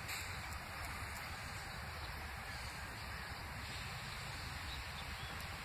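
Steady outdoor background noise: a low rumble with a faint hiss above it, and no distinct event standing out.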